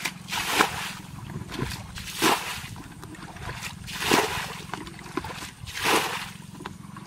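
Muddy water bailed with a plastic bucket and flung out over a mud bank, four splashes about two seconds apart, as a dammed ditch is emptied.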